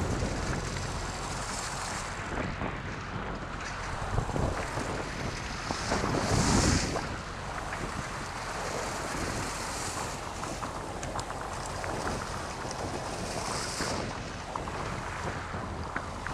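Wind buffeting the microphone over the wash of the sea around a boat, with a louder surge of water about six seconds in.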